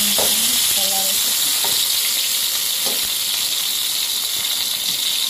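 Slices of eggplant sizzling steadily as they shallow-fry in hot oil in a non-stick pan, with a few light scrapes of a steel spatula as they are turned.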